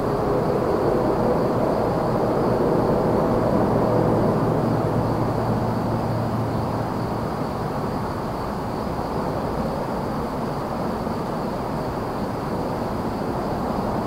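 Steady rumble of distant highway traffic, with one louder engine swelling over the first few seconds and fading away about halfway through. A faint, steady high-pitched trill of crickets runs underneath.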